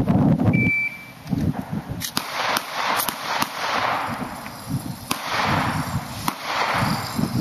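Pistol shots fired in a string at steel and plate targets: several sharp cracks starting about two seconds in, coming in uneven groups, each followed by a short echo.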